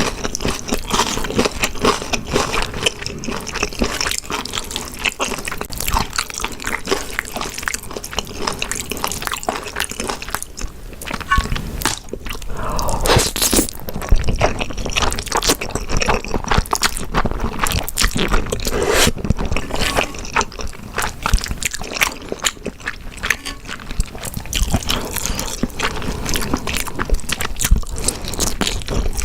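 Close-miked eating of grilled beef intestines and spicy stir-fried noodles: steady wet chewing with many small sticky clicks and smacks, loudest around twelve to fifteen seconds in.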